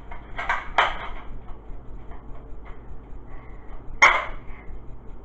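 Plastic Nerf revolver-style blaster clicking twice about half a second in as it is handled and primed, then a single sharp snap of the trigger and spring about four seconds in.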